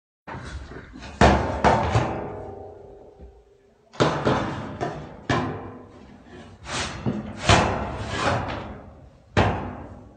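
Corrugated metal (zinc) sheeting being banged and struck hard, an irregular series of loud bangs and crashes that ring and fade after each blow, the ringing longest after the hits a second or so in.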